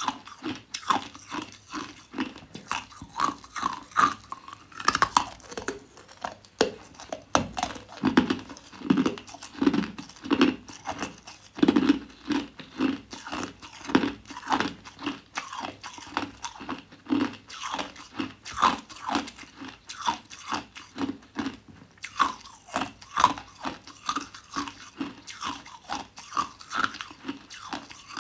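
A person biting and chewing hard, clear ice: a steady run of crisp crunches, a few each second.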